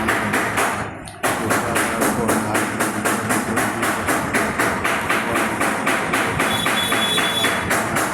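Background music with a quick, steady percussive beat, briefly dropping out about a second in.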